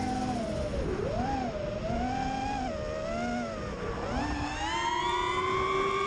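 A small motor whining at varying speed: its pitch wanders up and down for about four seconds, then climbs steadily to a higher, even whine.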